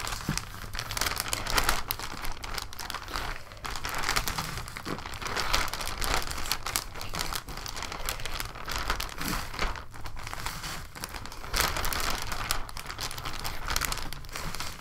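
Clear plastic bag crinkling and rustling as it is handled and worked down over a potted plant: a continuous run of irregular crackles.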